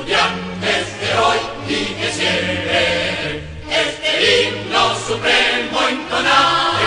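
Choir singing a school hymn over instrumental accompaniment, with held low notes beneath the voices.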